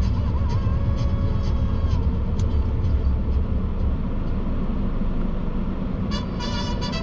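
Steady low rumble of car and traffic noise heard from inside a car stopped in traffic, with a held tone during the first two seconds.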